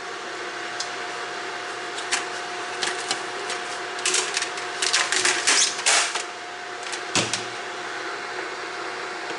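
Food dehydrator's fan motor running with a steady hum, while its plastic trays are handled and stacked, clattering between about four and six seconds in, with a knock about seven seconds in as a tray is set down.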